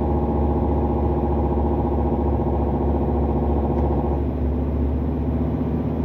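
Heavy truck's diesel engine running steadily, heard from inside the cab, held back by engine braking on the descent. The higher part of the engine note drops away about four seconds in.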